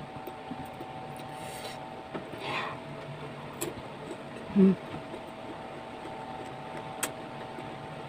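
Someone chewing green mango with a spicy dip, with a hissing breath drawn in about two and a half seconds in and a short hum about two seconds later, a reaction to the chili heat. A faint steady hum runs behind.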